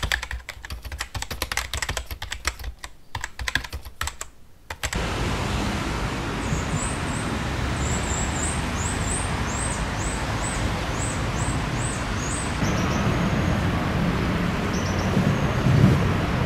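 A rapid run of sharp clicks, like typing on a keyboard, for about five seconds. It cuts off suddenly into steady outdoor street noise with traffic and birds giving repeated high chirps.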